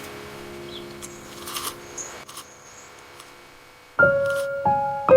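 Faint background with a low steady hum and a few soft rustles, then gentle piano music begins about four seconds in, with single held notes stepping to new pitches.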